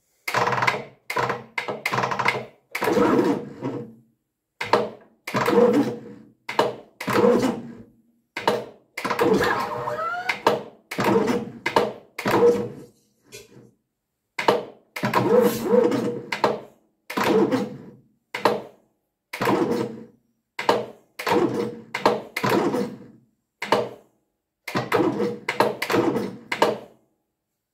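David Brown 25D diesel engine being cranked by its starter motor in about twenty short, stop-start bursts, turning over laboriously. The owner takes this for hydraulic lock, with flood water, silt and oil filling the cylinders.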